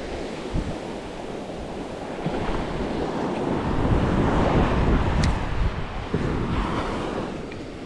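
Gulf surf breaking and washing up the sand, swelling and easing off, with wind buffeting the microphone. A short high tick sounds about five seconds in.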